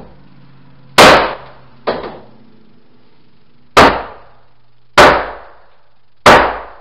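A steel wrecking bar hammered hard against a sacrificial wood block four times, with a lighter knock after the first, driving a tongue-and-groove OSB subfloor sheet sideways to close its open seam.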